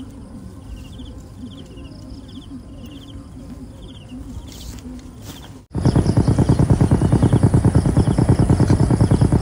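Insects chirping in short, regularly repeated high trills. About five and a half seconds in, the sound cuts abruptly to a small engine running loudly with a fast, even beat.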